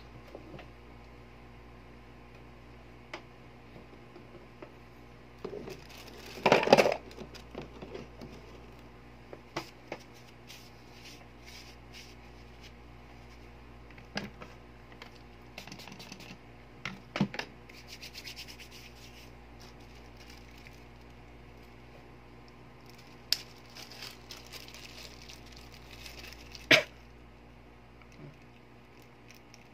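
Hands handling the parts of a disassembled spring airsoft M1911 pistol on a workbench: scattered rubbing and scraping, with a louder scraping rustle about a quarter of the way in and a couple of sharp clicks near the end.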